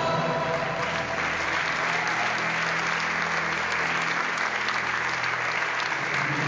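Audience applauding, swelling about a second in, with the runway music faint underneath.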